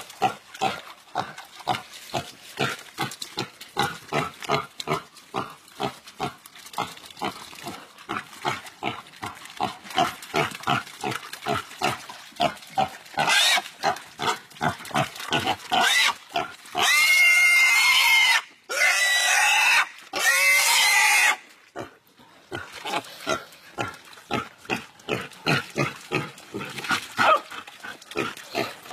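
A pig being bitten and held by dogs, grunting rapidly at about three grunts a second. About two-thirds of the way through it screams in three long, loud squeals, then goes back to the fast grunting: the distress calls of a pig under attack.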